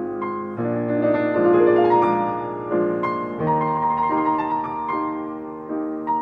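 Slow piano music: a melody of held notes over sustained chords, changing every second or so.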